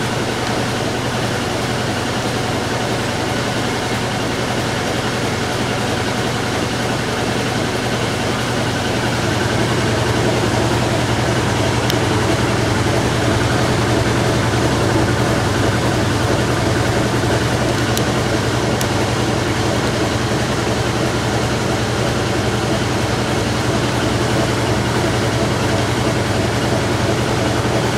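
Whirlpool-built direct drive top-load washer in spin, its basket and agitator turning at speed: a steady motor and drive hum that rises slightly about a third of the way in.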